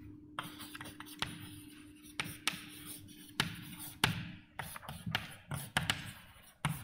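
Writing by hand during a lecture: about a dozen irregular sharp taps and short scratches of the writing tool on the board, with a faint steady hum through the first half.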